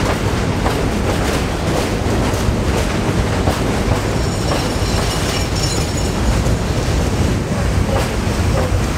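Budd-built R32 subway cars rolling past on elevated track: a steady rumble with repeated clacks of the wheels over rail joints, and a faint high squeal around the middle.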